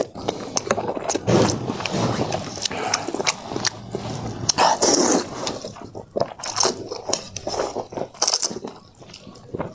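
Close-miked eating of hot and sour sweet potato starch noodles: wet chewing and biting with many short smacking clicks.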